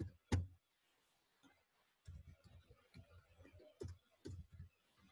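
Faint computer keyboard typing: two keystrokes at the start, a pause of about a second and a half, then a quick run of keystrokes for nearly three seconds.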